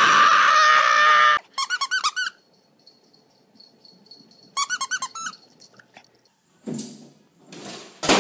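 Rubber squeaky dog toys being squeezed: a loud, drawn-out squeal for about the first second and a half, then a quick run of short squeaks, and another quick run about halfway through. Near the end come a couple of short, rough noisy bursts.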